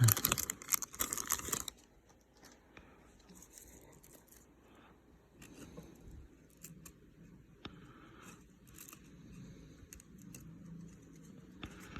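A foil wrapper of a pack of baseball cards being torn open with a loud crinkling rip for the first second and a half or so, then only faint rustles and light clicks as the cards are handled.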